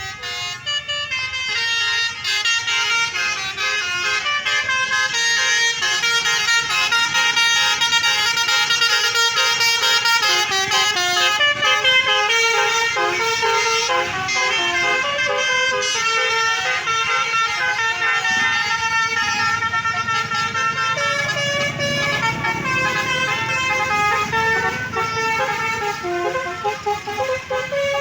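Multi-tone 'basuri' telolet bus horn playing a melody of quick stepped notes without a break. A bus engine rumbles underneath, louder after about twenty seconds.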